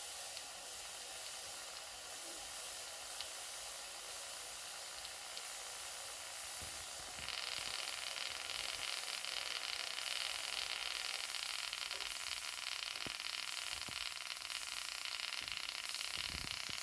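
Steam hissing steadily from a Doll toy steam boiler, growing louder about seven seconds in.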